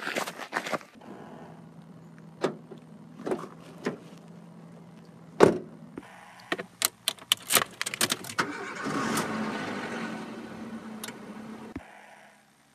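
Footsteps crunching on gravel at the start, then a few knocks and one loud thud about five and a half seconds in. After that come rapid clicks like keys jangling, then a car engine starting about eight and a half seconds in and running for about three seconds before it cuts off.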